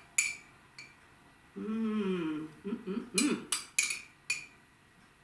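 A few sharp clinks of a metal spoon against a glass bowl, two early and a quick cluster of about four near the end, with a brief hum of a voice in between.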